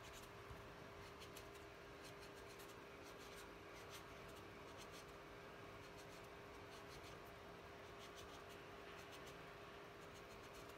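Faint scratchy rubbing of a metal ball tool pressed back and forth over thin gum paste petals on a foam pad, over a steady faint hum.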